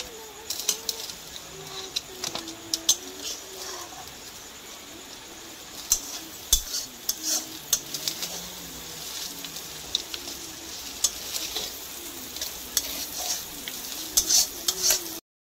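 Spatula scraping and clacking against a kadai, with many sharp clicks, while fish pieces and prawns sizzle in hot oil. The sound cuts off suddenly just before the end.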